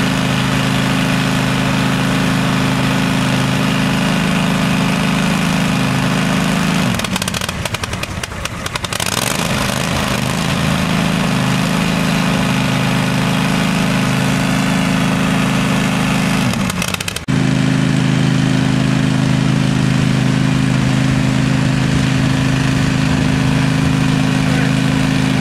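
MAHA IW2 roller brake tester running, its motor-driven rollers turning the car's wheels with a loud, steady hum and a noisy rush. The hum falls away and turns ragged for a couple of seconds about seven seconds in, then picks up again. It breaks off sharply near the end and comes back steady.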